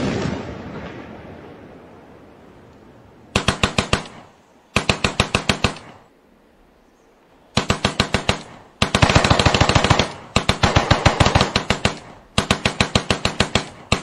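The tail of an explosion dies away over the first few seconds. Then automatic gunfire comes in six short bursts of rapid shots, about ten a second, each burst lasting half a second to a second and a half.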